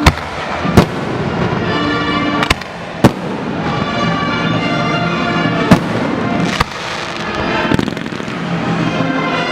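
Fireworks going off in a show: several sharp bangs spaced a second or two apart, the loudest about a second in and midway through.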